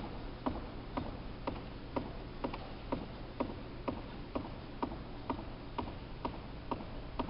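Single-legged hops on a hardwood court floor: one sneaker landing about twice a second in a steady rhythm, with a low steady hum underneath.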